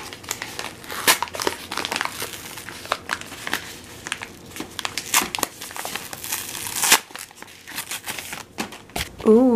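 Yellow padded paper mailer crinkling and tearing as it is handled and ripped open by hand: a run of irregular crackles, with one sharper rip about seven seconds in.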